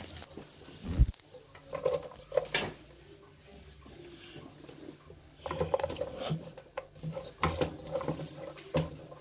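A cooking utensil knocking and scraping against a metal cooking pot as chopped onion is tipped in and stirred through melted butter. The knocks are irregular, with a heavier thump about a second in and a busier run of knocks in the last few seconds.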